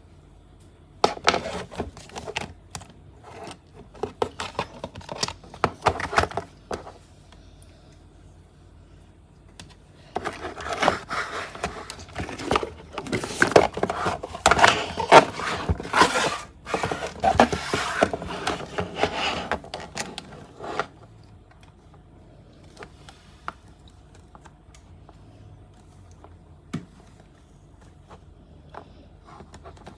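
Hands handling a boxed toy and its packaging: irregular scrapes, taps and rustling in two spells, the second longer and busier, then only a few scattered clicks.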